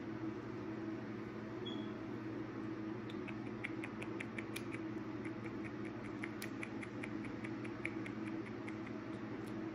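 A ferret making a quick run of soft clicking chirps, about four or five a second, starting about three seconds in, over a steady low hum.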